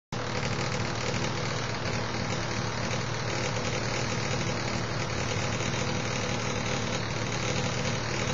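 A steady mechanical hum with a hiss over it, cutting in suddenly at the start and then running evenly without change.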